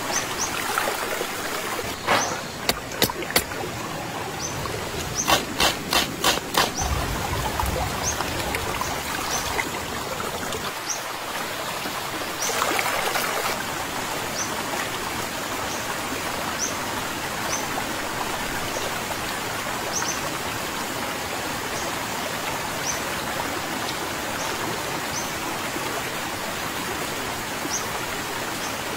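River water flowing steadily, with short high chirps repeating every second or so. Two brief runs of sharp clicks come in the first seven seconds, and there is a short louder rush about twelve seconds in.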